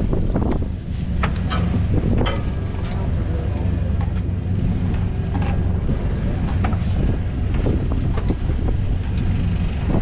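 A charter fishing boat's engine idling with a steady low drone under wind buffeting the microphone, and scattered knocks and clicks of gear on deck.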